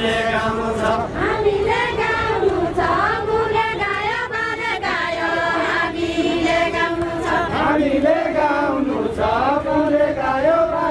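Group of voices singing a deuda folk song together in a chanting style, with long held, wavering notes.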